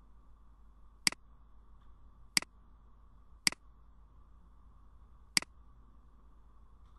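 Computer mouse button clicked four times at uneven intervals, each a sharp click followed at once by a softer release click.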